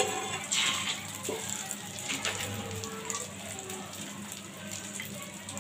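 An egg omelette frying in hot mustard oil in a nonstick pan, a steady crackling sizzle. A few light spatula knocks against the pan come in the first couple of seconds.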